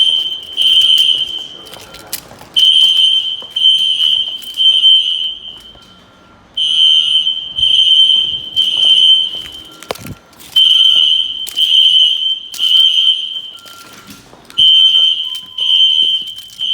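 System Sensor SpectrAlert Classic fire alarm horns sounding the temporal-three evacuation pattern: three shrill blasts about a second apart, then a pause, repeating every four seconds.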